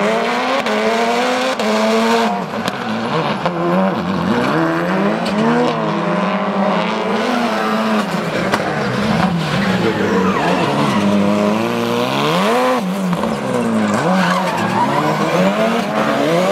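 Ford Fiesta gymkhana rally car drifting, its turbocharged four-cylinder engine revving up and down again and again as the tyres squeal and skid.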